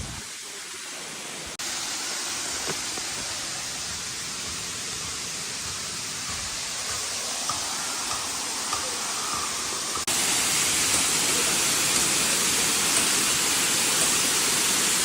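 Steady rush of flowing water from a stream or waterfall, an even hiss without rhythm. It gets abruptly louder about a second and a half in and again about two-thirds of the way through.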